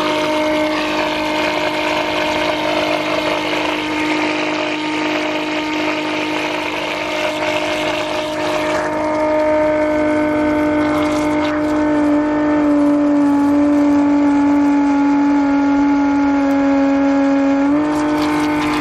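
Milwaukee M18 cordless transfer pump running steadily with a constant motor hum while it pumps water out through its hose, with water spraying from the outlet. The hum dips slightly in pitch in the second half and steps back up near the end.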